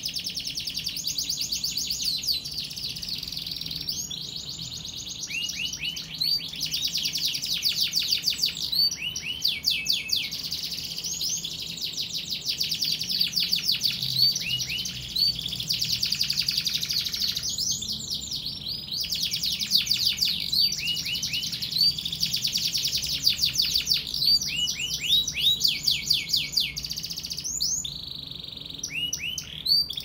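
Domestic canary singing in its cage: long runs of rapid, high-pitched trills, broken by short pauses.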